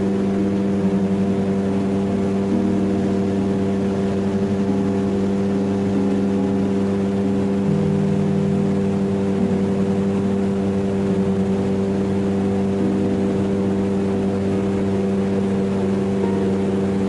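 Boat motor running steadily as the boat moves along on calm water, its pitch shifting slightly a few times, over a steady rushing hiss.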